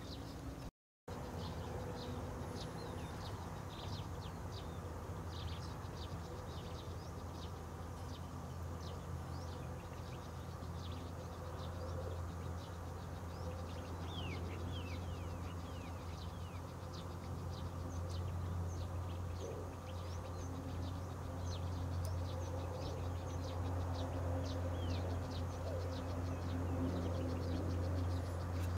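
Small birds chirping in a marsh, many short high chirps and a few falling whistles, over a steady low hum. The sound cuts out briefly about a second in.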